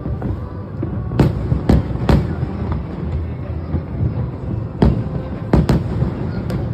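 Aerial fireworks display bursting: about seven sharp bangs, three in the first half and four in the second, over a continuous low rumble of further shells.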